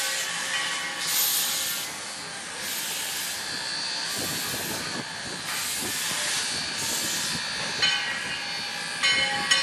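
Steam locomotive, a 1907 Baldwin 2-6-0, working out of sight: steam hissing, swelling in slow exhaust beats about once a second, with some clatter midway. A couple of sharp ringing strikes come near the end.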